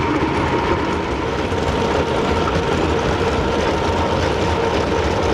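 Steady drone of underground coal-mine machinery: an unbroken rumble with a faint steady whine over it.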